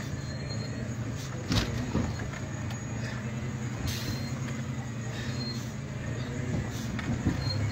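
Steady low engine and road drone heard inside a moving car, with a few light knocks from the cabin.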